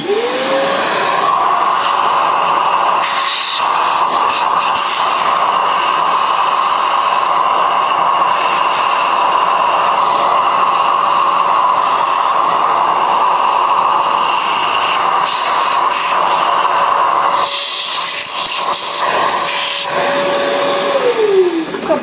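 Shop vacuum running: its motor spins up to a steady whine within the first second, its nozzle suck residue out of a coffee grinder's burr chamber, and the motor winds down about a second before the end.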